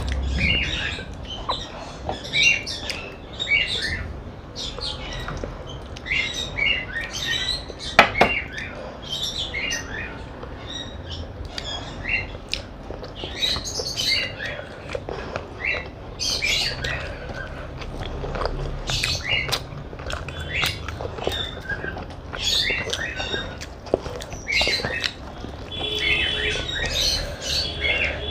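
Close-miked eating sounds: irregular wet smacks, clicks and chewing as rice, fried fish and chicken curry are eaten, with a brief steady high tone near the end.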